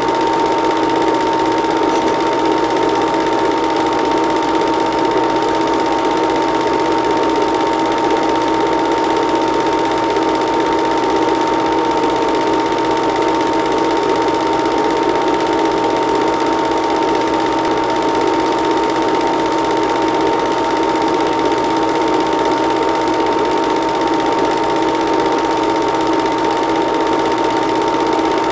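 Film projector running: a steady mechanical whir and fast clatter with a constant hum, unchanged throughout.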